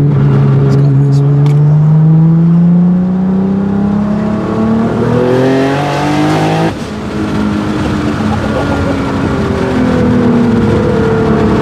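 Nissan GT-R engine accelerating, its note climbing steadily for about six and a half seconds. It then cuts off sharply and drops to a lower note that slowly falls away.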